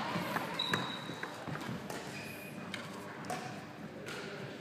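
Badminton rally: sharp clicks of rackets hitting the shuttlecock, with footsteps and short squeaks of sports shoes on a wooden court floor.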